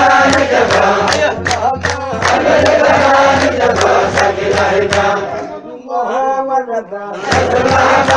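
Menzuma, Ethiopian Islamic devotional chant: male voices chanting in unison over a steady beat of sharp percussion hits. About five seconds in the percussion drops away and a quieter voice line carries on alone, and the full chant and beat come back near the end.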